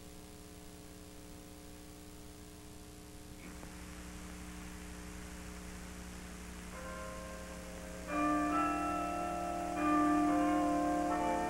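Tower bells ringing a run of overlapping notes. They start faintly about seven seconds in and strike louder near the end. Before them there is only a faint steady hum from the old soundtrack.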